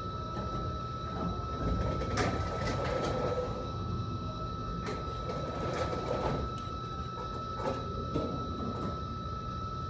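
Steady low rumble of an idling truck engine with a constant high-pitched whine over it, and a few scattered knocks and clanks.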